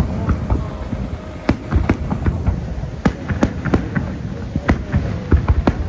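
Aerial fireworks bursting: a rapid, irregular string of sharp bangs over a continuous low rumble.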